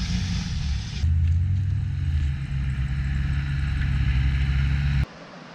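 Land Rover 4x4 engine running steadily, the sound changing abruptly about a second in and dropping away suddenly near the end.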